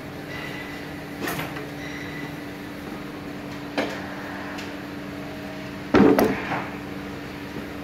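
A few sharp knocks and clicks as test-lead clips are pressed against the copper segments of a large DC armature's commutator and the armature is handled, the loudest a double knock about six seconds in, over a steady hum.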